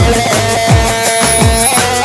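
Halay dance music played by a wedding band: a steady beat of deep drum hits that drop in pitch, under a held melody line.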